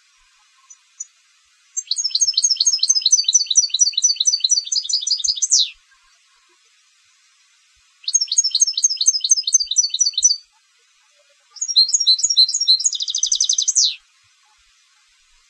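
European goldfinch singing in the style of a competition song bird: three bursts of quick, twittering high notes, each a few seconds long with pauses between, the last ending in a very fast trill.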